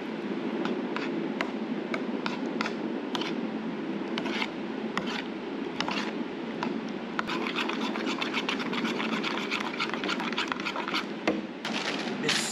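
Metal spoon scraping and clicking against a ceramic bowl as mayonnaise and ketchup are stirred into a sauce, over a steady low hum. Near the end, a plastic sheet crinkles as it is handled.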